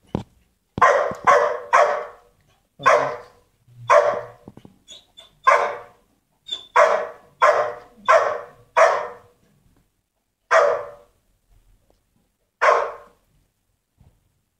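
A dog barking, about a dozen loud single barks in uneven runs, with a pause of a couple of seconds before the last one.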